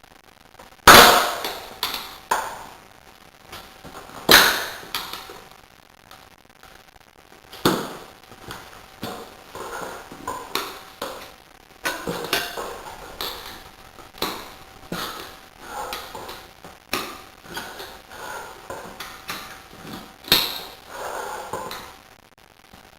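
Tools knocking and clinking against metal during a rear tyre change. Two loud, sharp knocks with a short ring come about a second in and about four seconds in, then a long run of lighter taps and clinks.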